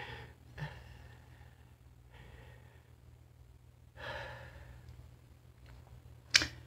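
A man breathing during a pause in his talk: soft breaths, a longer sigh-like breath about four seconds in, and a short sharp intake of breath near the end. A faint steady low hum runs underneath.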